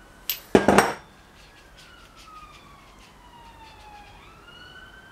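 Clattering metal clinks and knocks for about half a second near the start, as the freshly greased bicycle pedal and tools are handled on the bench. Then a faint high tone slides slowly down over a couple of seconds and rises again near the end.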